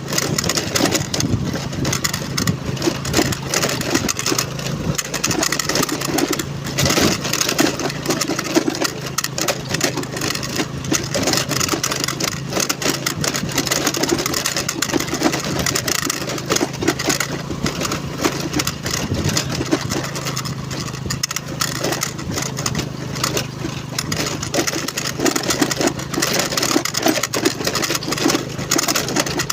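Honda Navi's small single-cylinder engine running steadily while the bike is ridden off-road, with a steady noisy rush over it.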